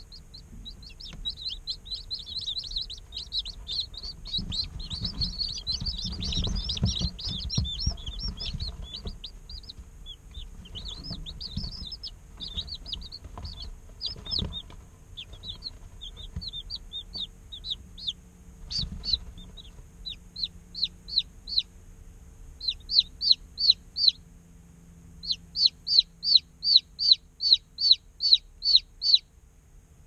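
Day-old chicks peeping: many high, overlapping peeps at first, thinning out in the middle. Near the end one chick peeps loudly and regularly, about three peeps a second. A faint steady hum sits underneath.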